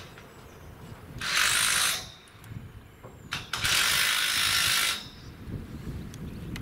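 Ratchet spanner clicking in two runs, the second longer, tightening a scaffold coupler.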